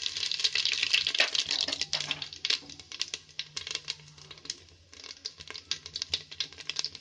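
Cumin seeds crackling and sputtering in hot mustard oil, the tempering that shows the oil is hot enough: a dense rush of tiny pops that thins out after about two seconds into scattered crackles.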